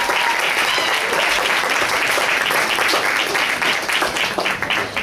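Audience applauding, the clapping thinning to scattered separate claps near the end.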